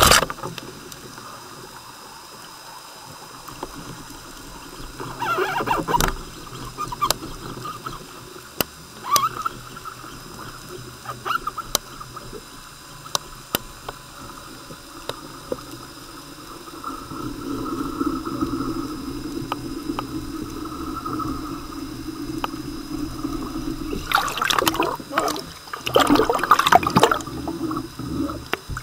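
Underwater recording: a speargun shot cracks right at the start, then steady water noise with scattered clicks and knocks, and several louder rushes of water noise in the last few seconds.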